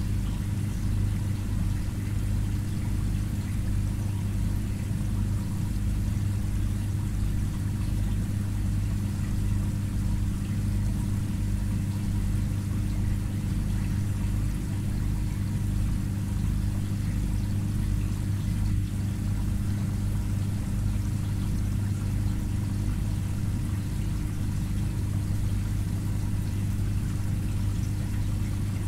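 Aquarium filter pump humming steadily on a low, even note, with a faint wash of moving water.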